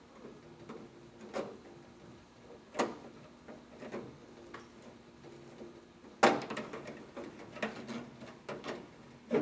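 Metal weatherstrip clips being pried out of a steel truck door with a clip removal tool: scattered clicks and knocks, then a sharp snap about six seconds in as a clip lets go, followed by a run of smaller clicks and rattles.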